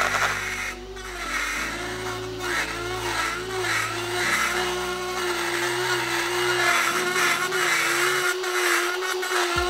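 A Dremel rotary tool grinding into a steel bar stool swivel plate to enlarge a bolt hole. The motor's steady high whine wavers slightly as it is pressed against the metal, over a grinding hiss.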